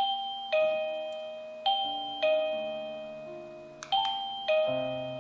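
Beanvis wireless doorbell receiver playing its chime melody at a chosen ringer volume setting. About six bell-like notes, each struck sharply and fading, over lower held notes.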